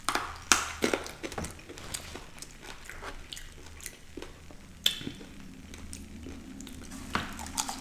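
Close-miked eating: chewing with scattered wet clicks and a few sharper bites, the loudest about half a second in and again near the five-second mark.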